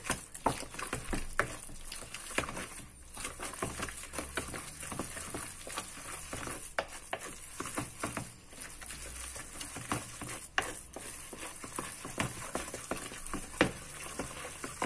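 Wooden spoon stirring a thick ricotta, spinach and egg mixture in a plastic bowl: continuous wet scraping and squelching, with irregular knocks of the spoon against the bowl.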